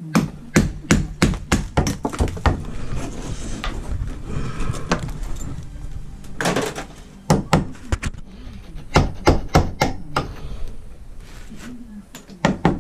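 Claw hammer striking in quick runs of blows, about two or three a second with short pauses, driving long fixings through a timber door lining into the blockwork behind.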